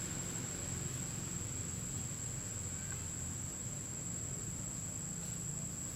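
Insects droning steadily in tropical forest: one unbroken high-pitched whine, over a low background rumble.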